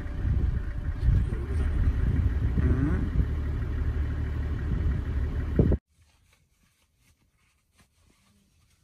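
Safari vehicle's engine running with a low rumble while driving, with a brief rise in pitch about three seconds in. It cuts off suddenly about six seconds in to near silence.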